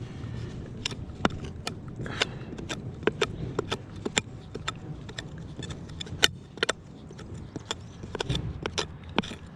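Digging tool working into stony soil of a deep hole: an irregular run of sharp clicks and scrapes, several a second, as the blade strikes grit and stones.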